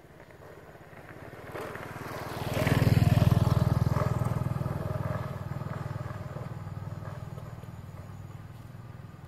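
Motorbike engine running as it rides past, growing louder over the first three seconds and then slowly fading as it moves away down the path.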